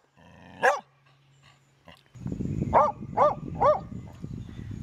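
Small dog barking: one yap near the start, then three quick yaps about three seconds in. A low rumble begins about two seconds in.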